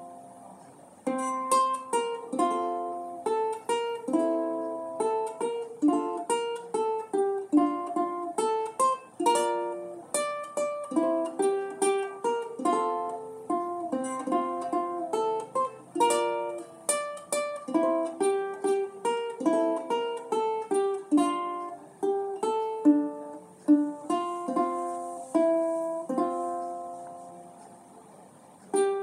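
Solo acoustic ukulele plucked, playing a melody with chords; the notes ring and die away one after another. The playing pauses briefly about a second in and dies down near the end before a new phrase starts.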